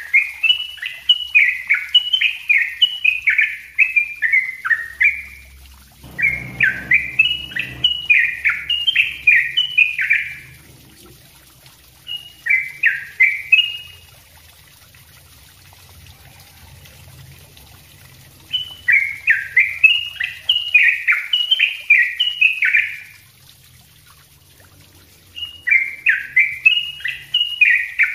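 Yellow-vented bulbul (trucukan) singing in full song: dense, rapid runs of quick falling notes in five phrases of one to four seconds each, separated by short pauses. A faint low rumble underlies the second phrase.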